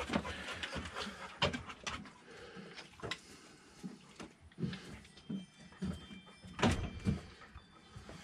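A dog panting in short, quick breaths, with a few sharp knocks from footsteps on a wooden deck.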